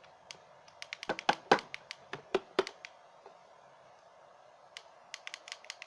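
Quick sharp clicks and taps of hands handling a siren unit's plastic case and controls, in two clusters about a second in and near the end. The siren itself makes no sound: the old unit will not switch on after long disuse.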